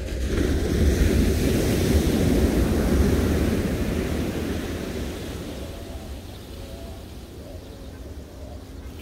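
Ocean surf breaking on a beach: a wave crashes and washes up the shore, swelling over the first few seconds and then slowly fading, with wind rumbling on the microphone.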